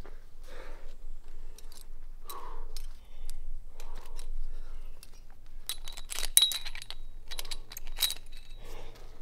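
A rock climber breathes hard, exhaling roughly every second and a half, while the metal carabiners and quickdraws on his harness clink and jangle. The clinking comes in a cluster from about six to eight seconds in, as he reaches up to clip.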